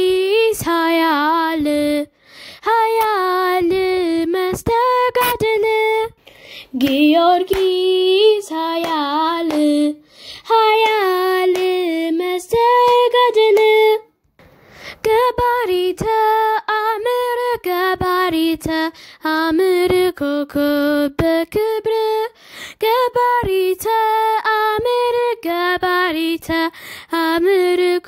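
A boy singing an Ethiopian Orthodox Tewahedo hymn (mezmur) to Saint George solo, with no instruments, in phrases of a few seconds with brief pauses between them.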